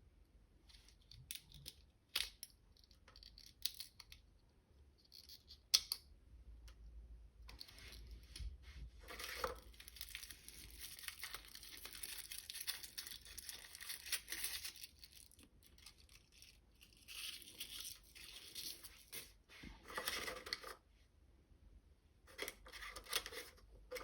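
Toy packaging being torn open and crinkled by hand: scattered small clicks and taps for the first few seconds, then a long stretch of tearing and rustling, and more short bursts of it near the end.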